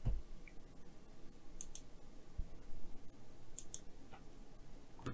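Faint clicking, with two quick pairs of clicks a couple of seconds apart and a soft low bump between them, over a low steady hiss.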